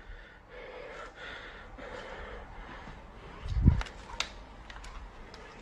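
A person breathing audibly. A dull thump comes about three and a half seconds in, followed by several light clicks.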